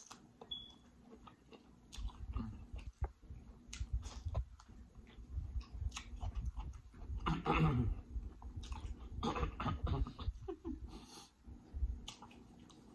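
Close-miked chewing of buttery lobster claw meat: wet lip smacks and soft mouth clicks, with a couple of short hums a little past the middle.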